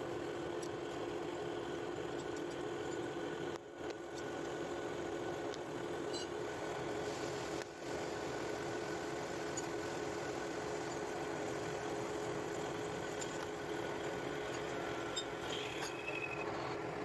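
Metal lathe turning a steel gear blank with a carbide insert tool: a steady machine hum with light clinks of chips. The sound drops out briefly twice, about four and eight seconds in.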